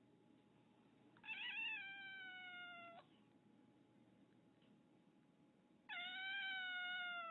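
Domestic cat meowing twice in long, drawn-out calls, each sliding slowly down in pitch; the first wavers at its start about a second in, and the second begins near the end.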